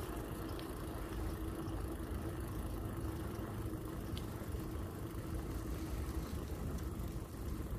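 A vehicle driving slowly: a steady low rumble with a constant hum that fades out near the end.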